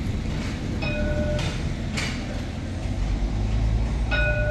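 Alstom Citadis tram running on its rails with a steady low rumble that grows louder in the second half. Two short pitched tones sound about three seconds apart, with a sharp click between them.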